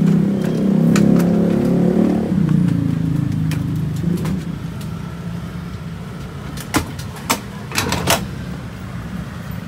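Ambulance stretcher's castor wheels rolling and rattling up the metal loading ramp into the vehicle for the first two and a half seconds, then a few sharp metal clicks and clanks as the stretcher is set into its locking mount. A steady low hum runs underneath.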